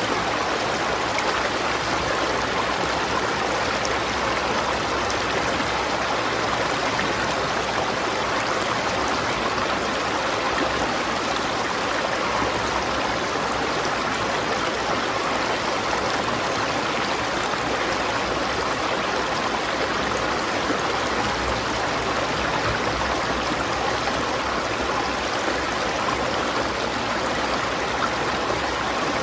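River water flowing: a steady, even rush of running water.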